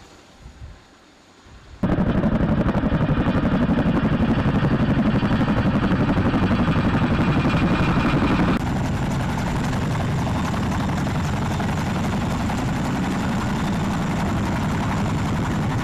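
Heavy-lift military helicopter running, a steady, loud rotor and turbine noise that cuts in suddenly about two seconds in after a near-quiet start. Partway through it steps down abruptly to a slightly quieter level of the same steady noise.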